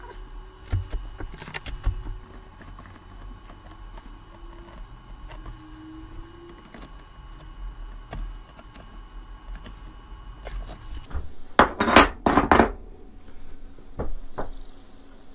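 Small metal clicks, clinks and taps of a hand tool and connectors being handled while a pack is wired back into a wall-mounted 18650 battery powerwall. About twelve seconds in come two loud, brief scraping noises.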